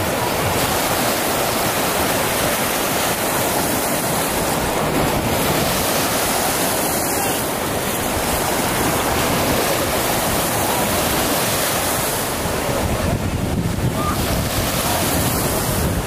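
Small lake waves breaking and washing in the shallows in a steady rush of surf, with wind rumbling on the microphone, heavier in the last few seconds.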